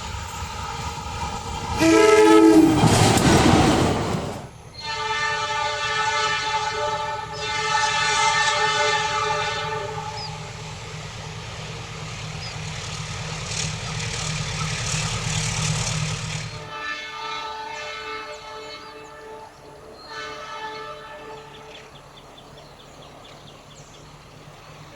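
A diesel locomotive-hauled train sounding its horn as it passes. A loud burst with a falling pitch comes about two seconds in, then a long held horn blast of several seconds, then the rumble of the train running by, quieter in the last third.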